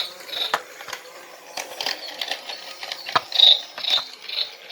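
Toy remote control stunt car's small electric motor and plastic gears whirring in short bursts, heard up close from on board, with sharp knocks and rattles as the car lurches and bumps; the loudest knock comes about three seconds in.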